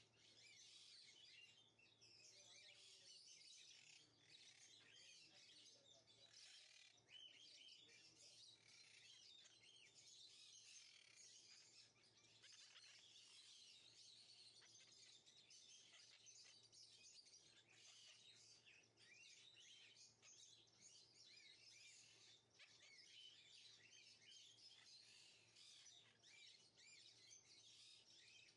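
Faint, continuous chorus of small birds chirping, many short quick calls overlapping.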